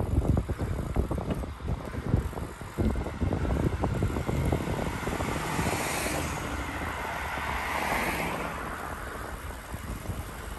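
Wind buffeting the microphone in gusts while moving along a road, strongest in the first few seconds. In the middle, the tyre noise of an oncoming car swells and fades as it passes.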